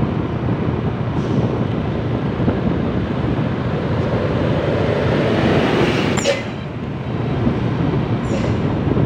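Steady engine, road and wind noise from a moving vehicle on an asphalt road. An oncoming truck grows louder and passes close by about six seconds in, with a short sharp burst of noise as it goes past.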